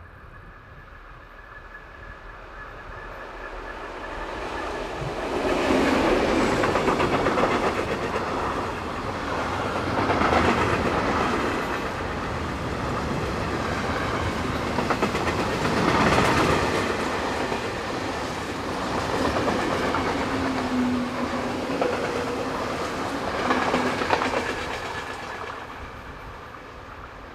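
Freight train passing close by: the rumble builds as the locomotive approaches, then the long rake of goods wagons rolls past with wheels clattering over the rails, swelling several times before fading near the end.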